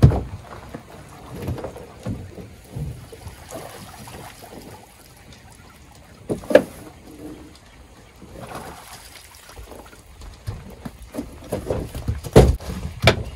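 Cast net being thrown from a boat and hauled back in by its rope: scattered knocks and rustles, a sharp knock about six and a half seconds in, and heavy thumps near the end as the weighted net comes down on the boat's deck.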